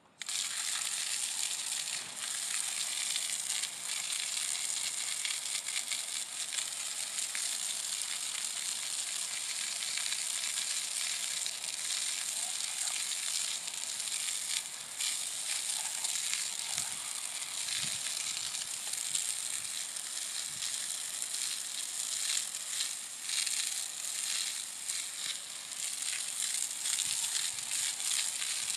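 Garden hose spray nozzle shooting a jet of water onto a clay-caked quartz crystal cluster and the concrete around it: a steady hiss and spatter that comes on suddenly and rises and falls a little as the jet moves over the rock.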